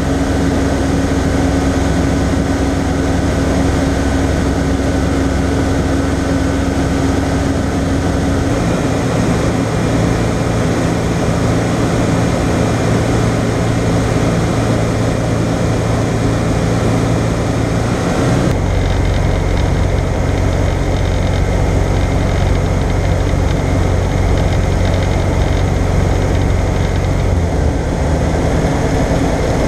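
Single-engine light aircraft's engine and propeller running steadily in flight, heard from inside the cockpit. The engine note shifts abruptly twice, about a third and about two-thirds of the way through.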